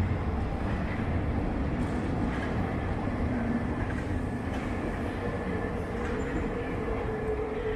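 Paris Metro Line 12 train leaving the station platform: a steady rumble of wheels and running gear. A faint steady tone joins it after about five seconds.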